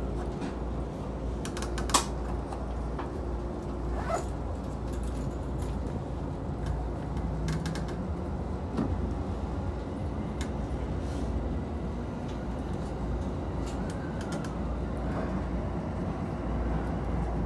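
JR Tokaido Line electric commuter train running, heard inside the carriage: a steady low rumble with scattered sharp clicks and knocks, the loudest about two seconds in.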